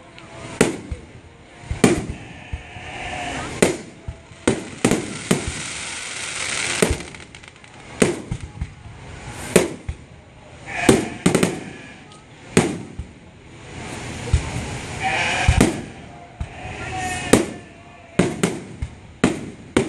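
Aerial firework shells bursting in an irregular volley, with sharp bangs about once a second and a stretch of crackling about five to seven seconds in.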